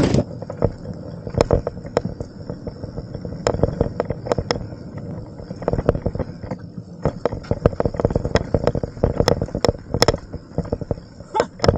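Mountain bike ticking and rattling on the trail: irregular sharp clicks and knocks over a low rumble, with a steady thin high-pitched whine behind them.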